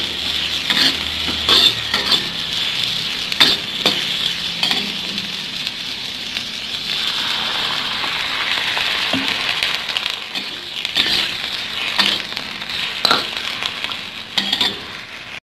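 Asparagus stir-frying in hot oil in a wok: a steady sizzle, with a metal spatula scraping and knocking against the wok now and then.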